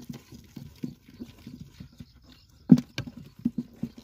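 Wet mud squelching and slapping as live catfish wriggle and are grabbed by hand in a muddy hole: a run of soft, irregular squishes, with two sharper wet slaps about three-quarters of the way through.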